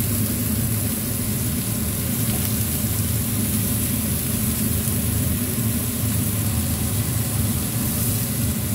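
Steady stovetop cooking noise as whole squid and sausages cook on a grill pan over high heat: a constant low hum with an even hiss over it.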